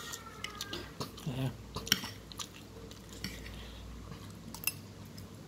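Someone chewing a mouthful of chicken curry and rice, with scattered small clicks and smacks, the sharpest about two seconds in. A metal spoon scrapes rice across the plate about four seconds in.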